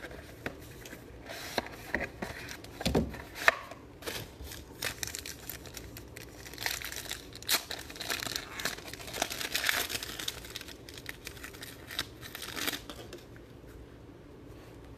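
Plastic shrink-wrap being torn off a trading-card box by its tear strip, then the pack inside crinkling as it is opened and the cards are slid out. Many sharp crinkles and tears, thickest in the middle and thinning out near the end.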